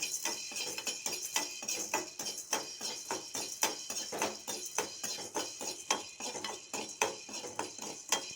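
Black peppercorns dry-roasting in a kadai while being stirred: a run of quick, irregular clicks and rattles as the spoon and the peppercorns knock against the pan.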